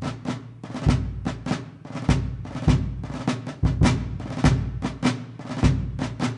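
Drum-led intro music: a steady percussion beat of deep bass-drum hits with quicker sharp drum strokes between them.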